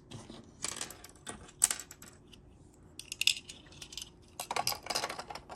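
Small hard plastic clicks and taps as miniature toy items are handled and set inside a toy refrigerator, with a short spell of light rustling about three seconds in.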